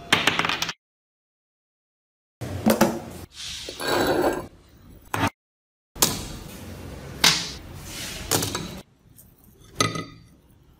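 A small metal bushing drops and clatters on a table, then metal parts are set down and handled on the table with a few knocks, clinks and a short scrape, in short bursts separated by dead-silent gaps.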